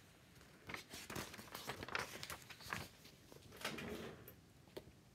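Pages of a picture book being turned and handled: a run of soft paper rustles and flaps, starting about a second in.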